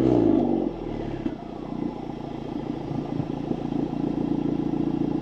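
Honda Civic Type R FK8's 2.0-litre turbocharged four-cylinder through a Milltek non-resonated race cat-back exhaust, dropping back from a rev in the first second, then idling with a steady note that grows a little louder near the end.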